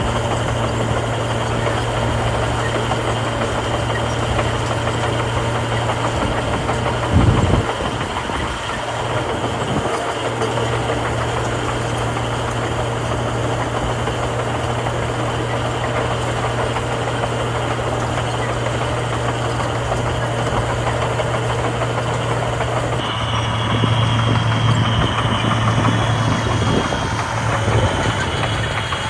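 Heavy diesel engines of earthmoving machinery running steadily with a constant low hum. A brief thump comes about seven seconds in, and a little after twenty seconds the sound shifts and a higher whine joins in.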